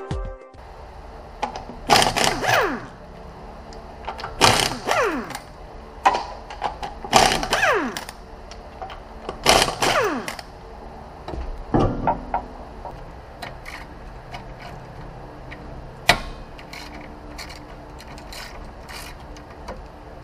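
Repeated mechanical bursts, about every two and a half seconds, each with a short falling whine, then lighter clicks and ticks: tools working on a car's rear wheel hub.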